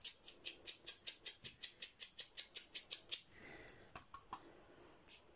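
A paintbrush handle tapped rapidly against a paint-loaded stick to flick paint spatter onto card: sharp ticks at about six a second for some three seconds, then a few slower, scattered ticks.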